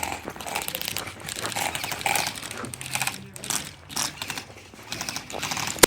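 Several airsoft electric guns firing full-auto in strings of rapid mechanical clicking, pausing briefly past the middle and then starting again.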